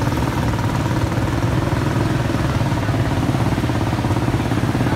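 A small engine idling steadily, with an even, rapid firing beat.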